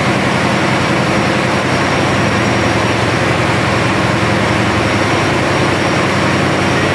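Cargo ship's diesel engine running steadily in the engine room: a loud, constant drone with a low hum under it.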